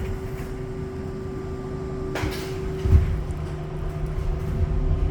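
Inside a New York City subway car: a steady low rumble and hum, with a sharp knock about two seconds in and a heavier thump about a second later.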